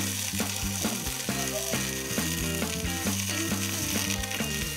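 Frying pan of artichoke hearts, ham and onion sizzling and bubbling as the added white wine reduces, under background music with a steady, plucked-sounding beat.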